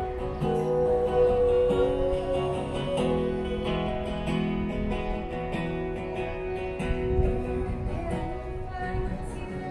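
A street busker's acoustic guitar playing strummed chords, changing every second or so.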